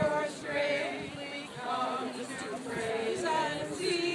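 A crowd of voices at once: people talking over each other, with some singing and a few held sung notes.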